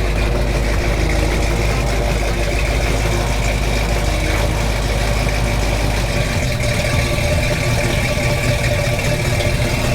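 1965 Ford Mustang engine idling steadily. About six seconds in its low hum shifts as the car is put into gear under load, and it keeps running.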